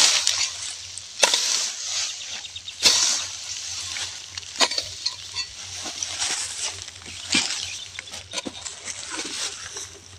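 A metal hoe chopping into grassy soil, several strikes roughly every second and a half, each followed by the rustle and scrape of dry grass and earth being pulled aside.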